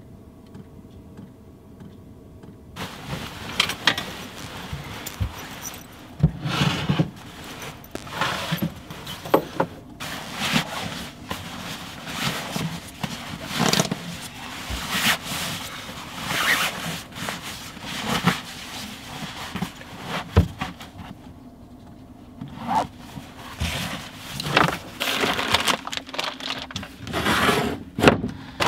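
Bedding and camping gear being handled and packed away by hand: irregular rustling of fabric, zip-like scrapes and knocks. It starts about three seconds in after a fairly quiet start.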